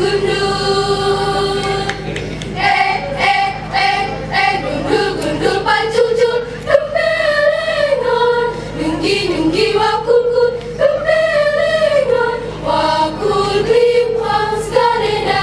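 Girls' school choir singing together, holding long notes.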